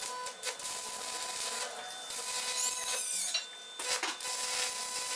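Stick (arc) welding: the electrode's arc crackling and sizzling against the steel of the vise's lead screw nut, with a couple of brief breaks and a faint steady tone underneath.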